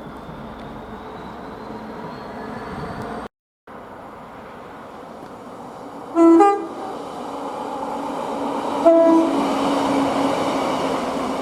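Train horn sounded in two short blasts about three seconds apart, over the growing rush of an approaching train. Before a brief cut, the steady running noise of a train.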